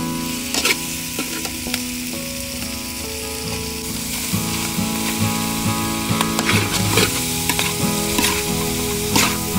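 Squid pieces sizzling in hot oil in a metal pan, with a metal spatula scraping and clacking against the pan as they are stirred; the sharpest clacks come about two-thirds of the way through and just before the end.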